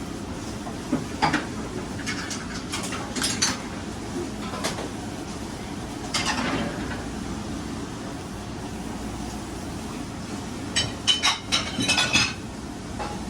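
Metal clinking and clattering in short clusters, with a dense run near the end, over a steady low mechanical hum.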